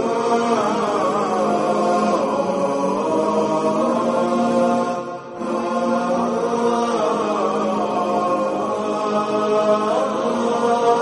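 Background music of chanted vocals in long held notes, several voices layered, with a short dip about five seconds in.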